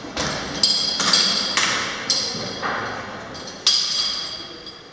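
Metal fire-hose couplings knocking against a hard floor as a hose is handled and rolled up: about seven sharp clanks, each ringing briefly before dying away.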